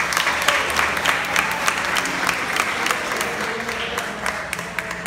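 Small audience applauding, dense clapping that thins out near the end.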